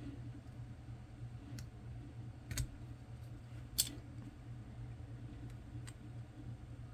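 A small hand tool clicking against the SD card reader's plastic housing while picking out rubber sealing: a few sharp clicks, the loudest about four seconds in, over a steady low hum.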